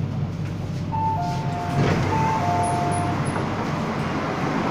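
MTR K-stock train's door chime: a two-note high-low chime sounded twice over the steady hum of the train, with a clunk about two seconds in as the doors open.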